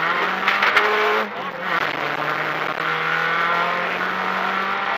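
Renault Clio rally car's engine under hard acceleration, heard from inside the cabin over road noise. The revs climb, dip sharply about a second in, then climb slowly again.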